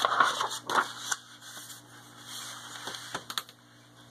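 Pages of a picture book being turned and handled, a paper rustle with several sharp taps and clicks, busiest in the first second and again about three seconds in.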